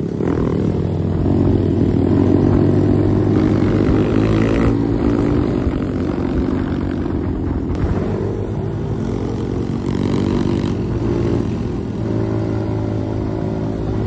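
Motorcycle engine running steadily at cruising speed, heard from the rider's seat, its note holding with only small changes in throttle.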